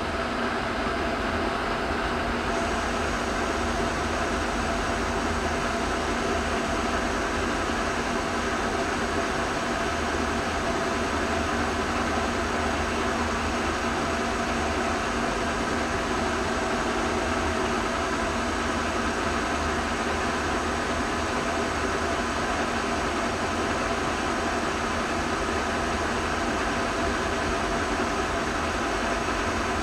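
Pacemaker engine lathe turning steel with a CNMG carbide insert (ASZLBYM) at 615 RPM, taking a light 10-thousandths cut at 5 thousandths per revolution feed. The lathe runs steadily while the tool cuts, with several steady tones over an even machine noise.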